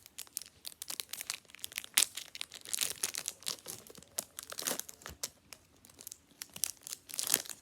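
Foil Pokémon booster pack wrapper being torn open and crinkled by hand: a dense run of irregular crackles, the sharpest about two seconds in.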